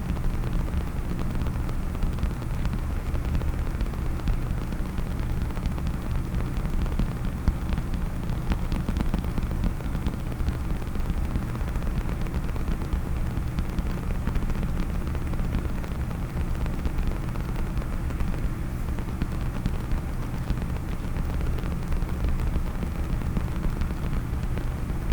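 Fingers tapping and scratching on a hard case right at the microphone: a dense, unbroken crackle of many small taps and scrapes over a heavy low rumble.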